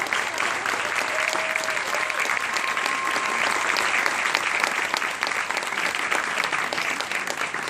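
Large crowd of spectators applauding, with a couple of long whoops over the clapping in the first few seconds; the clapping thins out near the end.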